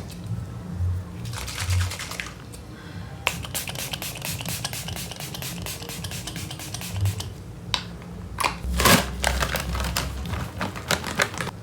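Quick run of light clicks and taps lasting about four seconds, like small plastic makeup items being tapped and handled, then a few louder scattered clicks and a short rustling burst near the end.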